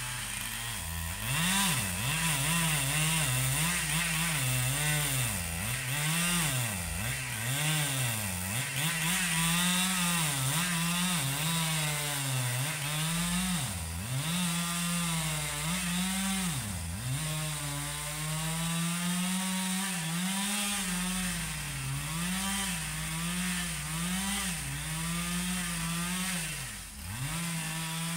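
Husqvarna 395 two-stroke chainsaw running while cutting rubberwood logs. Its engine pitch repeatedly sags and climbs back up as it is throttled and loaded, with a few sharp drops in revs along the way.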